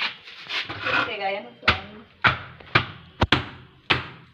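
Wooden block knocked down again and again onto a freshly laid cement-mortar floor to tamp it, about two sharp knocks a second starting a little over a second and a half in.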